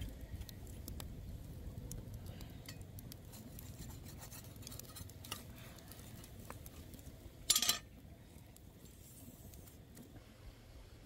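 Open wood fire crackling, with scattered small sharp pops and one louder, sharper burst about seven and a half seconds in.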